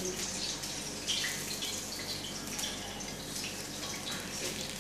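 Commercial kitchen background noise: a steady hiss with many small, irregular crackles.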